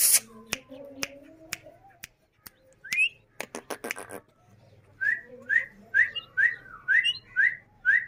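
Indian ringneck parakeet whistling: a single rising whistle about three seconds in, then a run of about seven short rising chirps, about two a second, in the second half. Sharp clicks are scattered through the first half.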